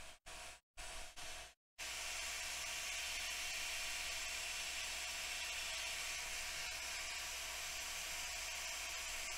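Steady hiss of a hot air rework station blowing on a laptop logic board, starting abruptly about two seconds in and then holding even.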